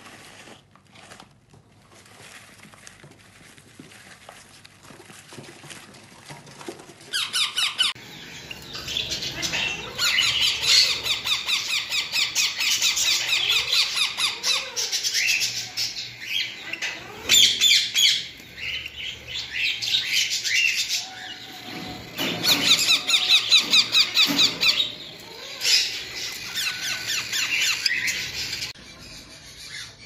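Parrots squawking and chattering in fast, high-pitched strings of calls. The first several seconds are faint, with a few clicks, and the calling turns loud about eight seconds in.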